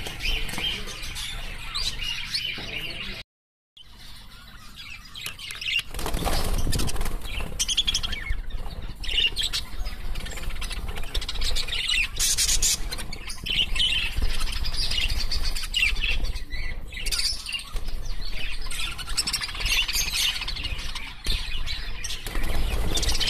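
A flock of caged birds chirping and chattering continuously, with wings fluttering among the calls. The sound drops out briefly about three seconds in, then resumes more densely.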